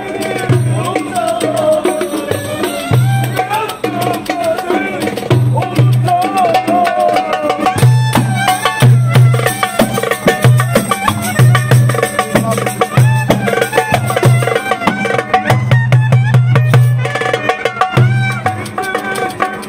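Turkish Roma street band playing an instrumental passage: a clarinet carries an ornamented, wavering melody over a steady rhythm of deep darbuka strokes and sharp slaps, with a tambourine's jingles.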